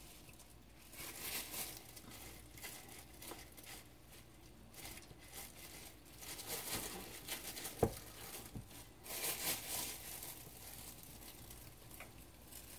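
Batter-coated shrimp frying in a small pot of hot oil, crackling in short bursts as pieces go in. One sharp knock about eight seconds in.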